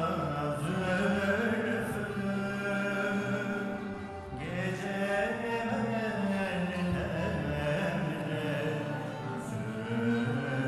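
Live Turkish classical music: a choir and ensemble of plucked and bowed instruments performing a song in makam Kürdilihicazkar, with singing over the instruments.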